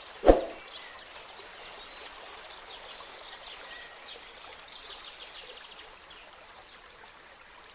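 A single sudden loud knock in the first half-second, then a steady rushing noise like running water, with many faint, short high chirps over it.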